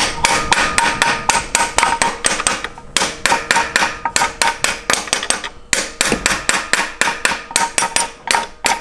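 Metal hand tool working on the engine: runs of sharp metallic clicks or knocks, about five a second with brief pauses, each with a short ringing note.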